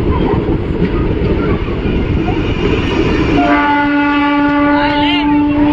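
Passenger train running with a steady rumble; about three and a half seconds in, a train horn sounds one long, steady blast that holds to the end.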